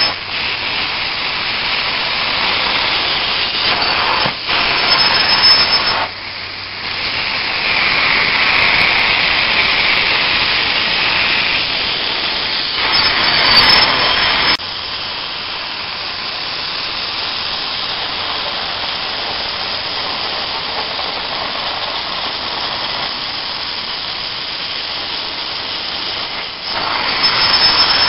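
Upholstery tool of a truck-mounted steam cleaning unit spraying and vacuum-extracting rinse water from chair fabric: a steady hiss that shifts in level as the tool is worked, dipping briefly about six seconds in and dropping to a quieter steady hiss about halfway through.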